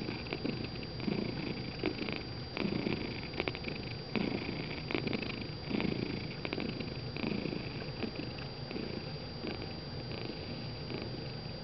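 A gray-and-white tabby house cat purring while dozing relaxed on a lap. The purr comes in low swells a little faster than once a second and grows fainter in the last few seconds.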